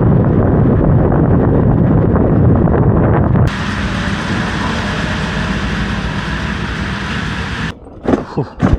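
Loud, steady vehicle travel noise with wind on the microphone: a heavy rumble that switches abruptly, about three and a half seconds in, to a thinner hiss. It stops near the end, leaving a few short knocks.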